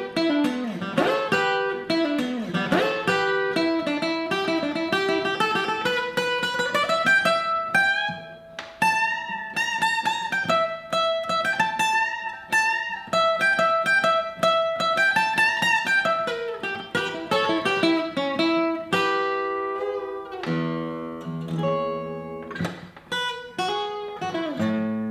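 Solo steel-string acoustic guitar, fingerpicked: a quick, continuous run of plucked notes carrying a melody that rises and falls, moving to lower, fuller chords near the end.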